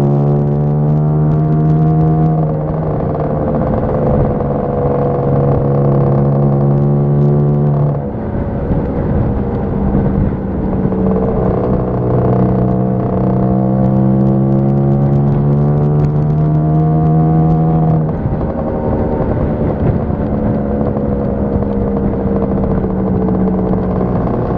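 Lambretta scooter's single-cylinder two-stroke engine running under way on the road, its note climbing slowly and then dropping back sharply twice, about eight seconds in and again about eighteen seconds in.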